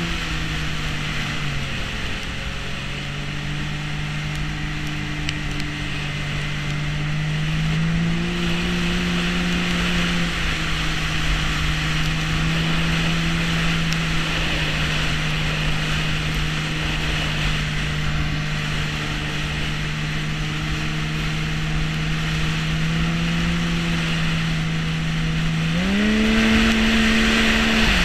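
Snowmobile engine running at steady trail speed, heard from on board the machine, with a constant hiss of the track and wind beneath it. Its pitch holds mostly level with small rises, then climbs sharply about two seconds before the end as the sled accelerates, and drops again.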